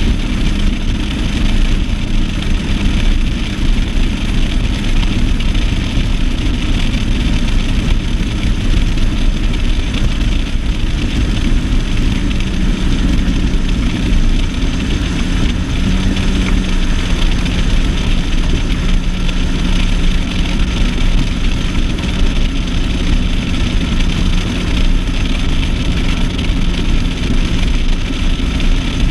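Bass boat's outboard motor running steadily under way, with a constant rush of wind and water over the microphone; the engine note rises slightly about halfway through.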